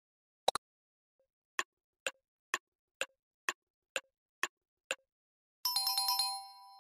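Cartoon sound effects. A quick double click, then a clock-like ticking of eight ticks about two a second. Near the end comes a short flurry of quick clicks with a bright, sparkling chime that rings out briefly.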